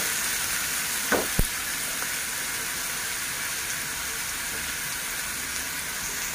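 Chopped onions and green chillies sizzling steadily in hot oil in a kadai, the tempering stage of a potato bhaji. Two short knocks of the spatula against the pan sound about a second in.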